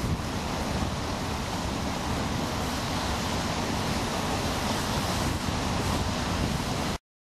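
Wind buffeting the camera microphone: a steady rushing noise with low rumbling gusts, which cuts off to silence about a second before the end.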